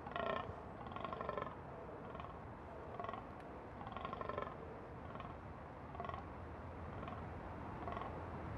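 A mature fallow deer buck groaning in the rut: a series of short, deep groans, one every one to two seconds.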